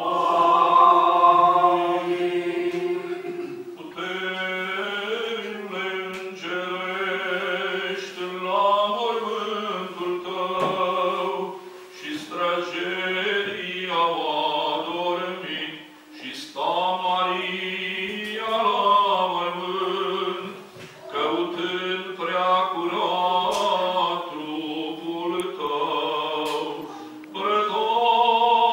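Eastern Orthodox liturgical chant from the Vespers service, sung by men's voices: a slow, melismatic melody over a steady low note, in phrases of a few seconds with short breaks between them.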